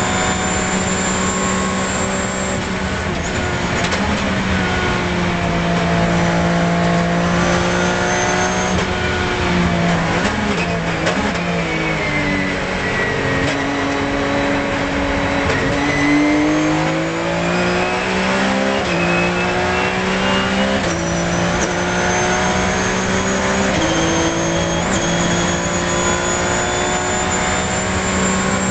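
Porsche 997 GT3 Cup's flat-six engine heard from inside the cockpit: held at high revs in sixth gear, then brakes and downshifts about ten seconds in for a slow corner, and accelerates hard back up through the gears to sixth. A high whine falls and rises with road speed.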